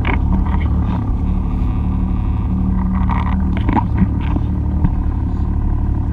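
Jet ski engine running steadily at low cruising speed, a constant low hum.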